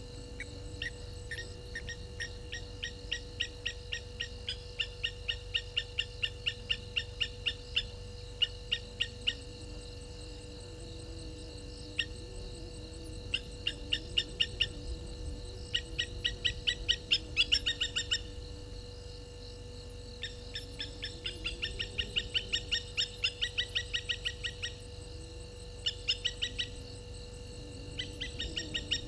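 Runs of short, sharp high-pitched calls from an animal, several a second, each run lasting a few seconds, over a steady high-pitched insect drone and a constant low hum.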